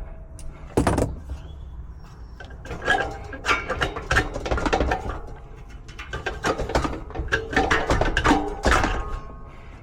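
Irregular clanks, knocks and clatter of metal tools and parts being handled, with short metallic rings.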